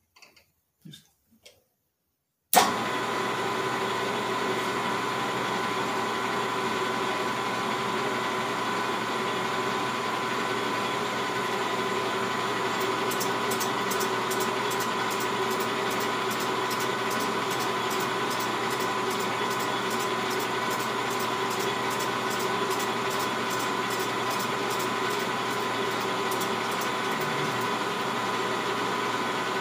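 Metal lathe switched on with a sharp click about two seconds in, then running steadily with a motor and gear whine while it turns a chainsaw cylinder in its chuck. About halfway through, a regular light ticking of roughly three a second joins in.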